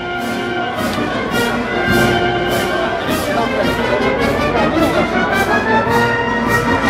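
Brass band playing a march, with sustained brass notes over a steady beat about twice a second.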